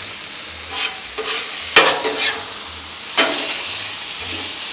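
Thin-sliced beef sizzling on a Blackstone flat-top griddle, a steady frying hiss, with a metal spatula scraping and clanking across the steel cooktop half a dozen times as the meat is stirred.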